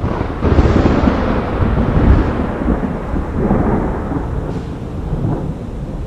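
Thunder: a loud clap about half a second in that rolls into a long low rumble, swelling again about two seconds in and then slowly fading.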